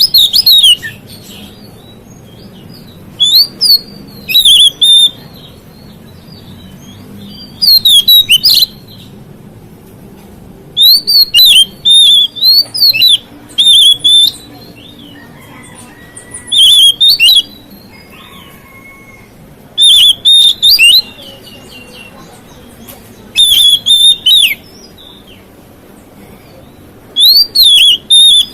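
Oriental magpie-robin (kacer) singing: loud, short bursts of rapid whistled and chattering phrases about every three to four seconds, with quiet gaps between them.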